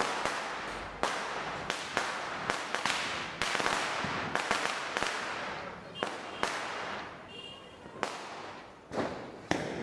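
Diwali firecrackers going off: a dozen or more sharp bangs in irregular succession, with a hissing crackle between them.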